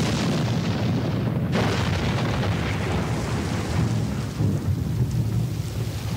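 Sound-effects track of a stage show: a continuous deep rumble under a hissing noise, with a sharp crash about a second and a half in.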